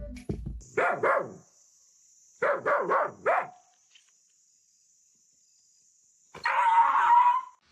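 A dog barking: a couple of barks about a second in and a quick run of four about two and a half seconds in. Near the end comes a longer, louder sound.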